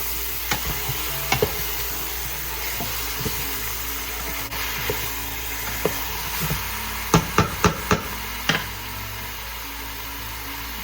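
Chicken and aromatics sizzling in oil in a pot while a spatula stirs them, with scattered knocks of the spatula on the pot and a quick run of about five sharp clanks a little past halfway through.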